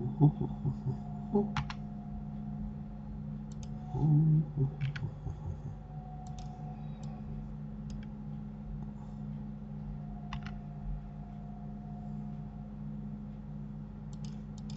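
Scattered clicks of a computer mouse and keyboard while editing a 3D model, over a steady low hum. Duller, louder knocks come near the start and about four seconds in.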